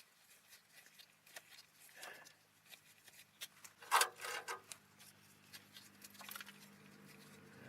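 Faint scattered clicks and rustling from hand work on parts, with one brief louder rustle about four seconds in, over a low steady hum.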